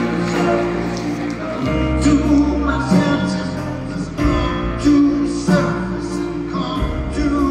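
Live band playing in a concert hall, heard from the audience: piano and guitars over a bass line whose notes change about every second and a half.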